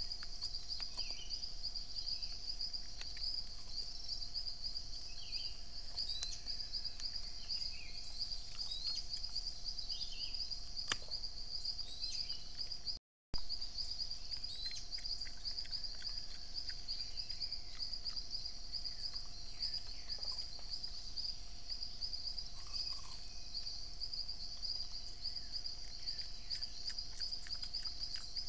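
Forest ambience dominated by a steady, high-pitched insect chorus, with scattered short bird chirps, a few faint clicks, and a faint steady low hum. The sound cuts out for a moment about halfway through.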